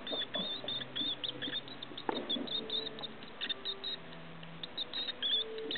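Mouse squeaking over and over in short, high-pitched chirps as a Brachypelma vagans tarantula seizes and bites it: distress squeals of prey being caught.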